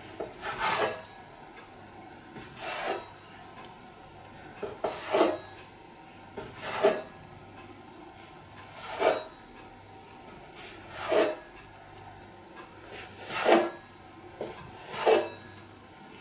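A steel bench scraper chopping down through soft dough and scraping on a wooden cutting board. It makes a short rasping stroke about eight times, one every two seconds or so.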